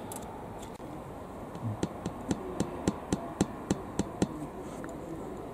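A run of about ten light, sharp clicks or taps, evenly spaced at three to four a second, starting a couple of seconds in and stopping a little after four seconds.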